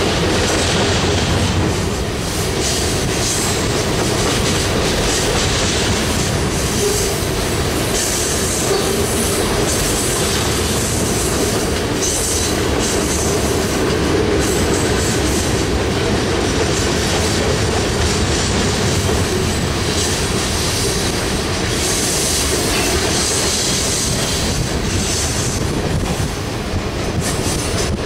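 Freight cars of a passing freight train rolling by, from lumber-loaded centerbeam flatcars to boxcars and tank cars: a steady, loud rumble and clatter of steel wheels on the rails.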